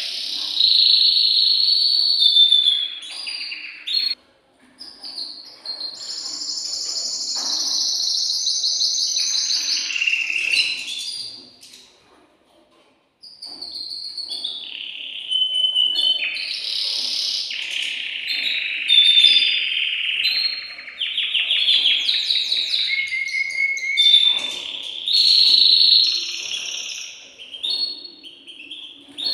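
Male domestic canary singing in long, rapid trilled and warbling phrases, the loud song of an excited male in breeding condition. The song breaks off for about a second near the middle, then resumes.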